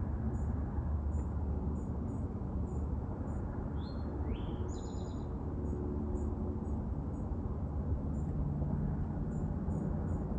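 Small birds chirping outdoors: a faint, high chirp repeats about twice a second, with a short run of louder, higher calls about four to five seconds in, over a steady low background rumble.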